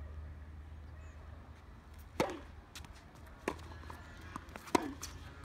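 Tennis rally: racket strings striking the ball, three sharp hits about a second and a quarter apart, with fainter taps of the ball bouncing between them.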